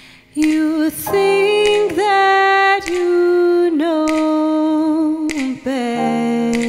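A woman singing long held notes that slide from one pitch to the next, starting about half a second in.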